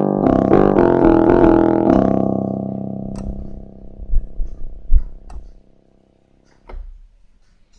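Kawai FS660 portable keyboard playing a few quick notes on one of its built-in voices, the last note held and fading out over about four seconds. A few sharp clicks and knocks come over the fading note, the loudest about five seconds in.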